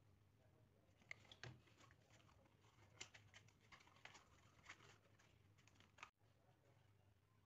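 Faint scattered clicks and taps of a hollow corrugated plastic box being handled and pressed together by hand, over a low steady room hum.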